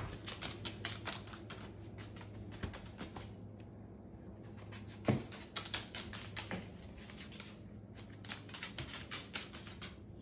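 Moluccan cockatoo's toenails clicking on a hardwood floor as it walks and hops, a quick run of light clicks that thins out for a moment, with one louder knock about five seconds in.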